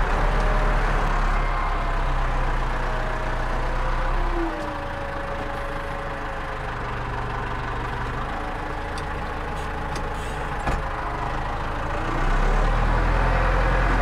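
Tractor diesel engine running, heard from inside the cab. The revs drop about four and a half seconds in and pick up again near the end, with a few light clicks in between.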